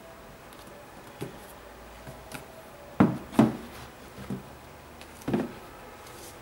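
Handling of a sneaker and its cardboard shoebox: a few short, dull knocks and rubs, the loudest two close together about three seconds in, as the shoe is set down on the box lid.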